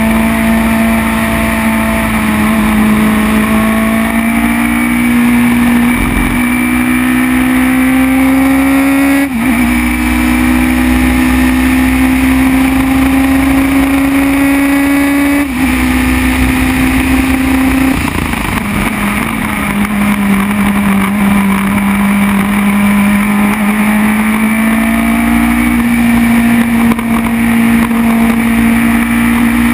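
Formula BMW race car's 1.2-litre BMW four-cylinder engine at high revs, heard onboard at racing speed. The pitch climbs steadily, drops sharply with gear changes about 9 and 15 seconds in, falls lower around 18 seconds, then climbs again.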